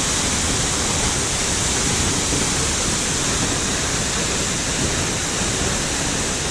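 Waterfall with a heavy flow: a steady, unbroken rush of falling water.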